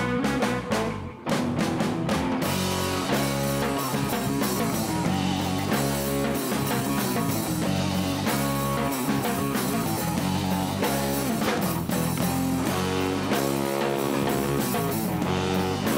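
Instrumental band playing live: electric guitar, bass guitar and drum kit in a rock groove. About a second in, the music briefly cuts out, then the full band comes back in.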